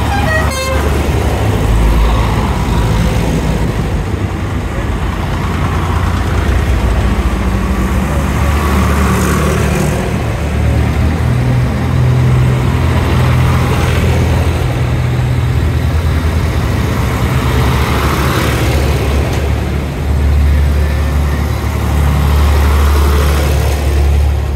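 Vintage tractor engines chugging steadily as tractors drive past one after another. There is a brief horn toot in the first second.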